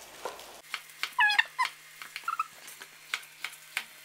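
Kitchen knife chopping eggplant on a plastic cutting board, an irregular tap each time the blade meets the board. About a second in, a short high-pitched cry rises above the chopping, with a fainter one just after two seconds.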